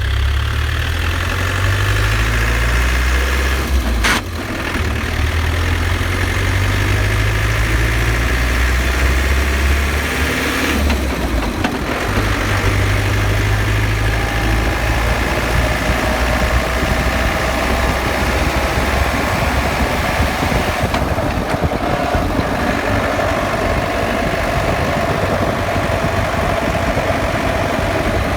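Land Rover Defender running, a loud low rumble with a sharp click about four seconds in and a faint whine that slowly rises in pitch from about halfway. The owner puts the whine, rattle and grinding down to the differential since the vehicle was lifted.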